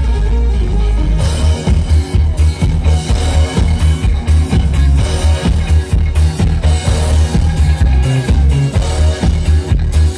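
Live rock band playing loudly through a big stage PA system, heard from the crowd: electric guitars, drum kit and keytar over a heavy, booming bass.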